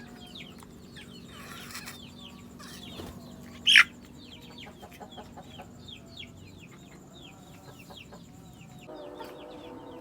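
Young chickens peeping over and over in short, high, falling notes, several a second, with one loud shrill cry about four seconds in. A short rustle comes around the second second.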